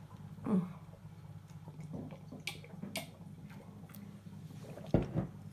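Someone sipping and swallowing a drink from a mug, soft and wet with a few faint clicks, then a single low thump about five seconds in.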